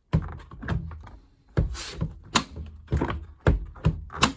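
Beko washing machine door being worked by hand, giving about seven sharp knocks and clunks against the frame. The door hangs loose on its hinge and has to be lifted to close.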